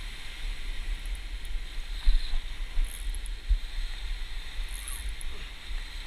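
Wind buffeting the camera microphone in uneven low gusts, over the steady hiss of surf washing over lava rocks.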